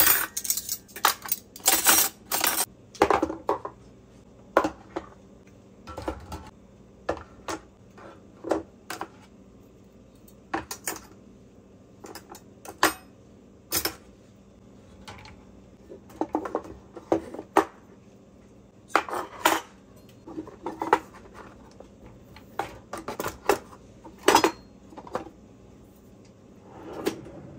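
Stainless steel cutlery clinking as forks, spoons and knives are put back by hand into a drawer organizer, a run of irregular sharp clinks in small clusters with short pauses between.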